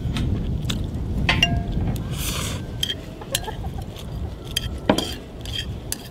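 Instant noodles slurped from a bowl, then chopsticks clicking and scraping against the bowl as the noodles are stirred, with a sharp clink about five seconds in.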